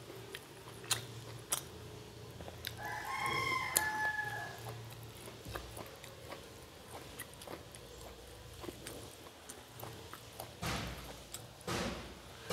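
A rooster crows once in the background, a call of a few pitched syllables lasting about two seconds, starting nearly three seconds in. Around it come eating sounds: chewing and fingers working rice against a steel plate, with scattered small clicks and a couple of duller knocks near the end.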